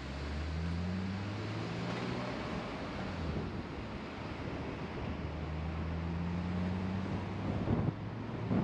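A car driving along: a steady low engine hum over road noise, with wind buffeting the microphone in irregular low thumps near the end.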